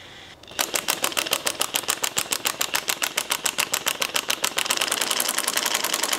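Impact wrench hammering on the forcing bolt of a pulley puller: a rapid, even rattle of impacts that starts about half a second in and grows denser and steadier past the middle.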